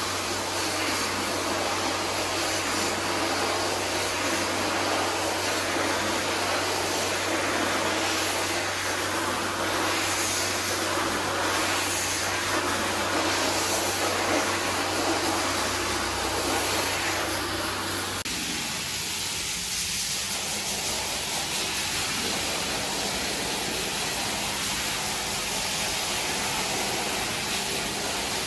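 Perfect House rotary carpet-scrubbing machine running with a steady motor hum, its pad scrubbing through soapy foam on a wet carpet. About 18 seconds in the machine stops, and a steady hiss of water spraying from a hose takes over.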